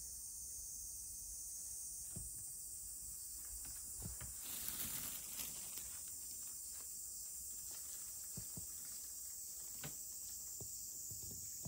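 Quiet room ambience: a steady high hiss with a few faint soft taps, and a brief rustle about five seconds in.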